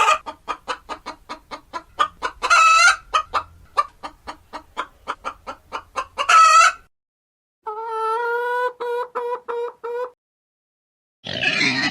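Chicken clucking in a fast run of short clucks, about four a second, broken by two louder drawn-out cackles. Then a rooster crows once for about two seconds, and a short rough noise follows near the end.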